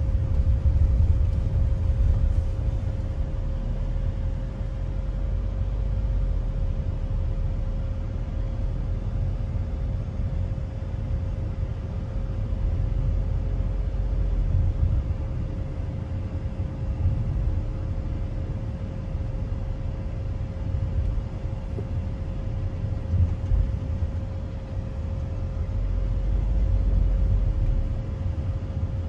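Steady low rumble of tyre and engine noise heard inside a moving car's cabin, with a faint constant whine over it.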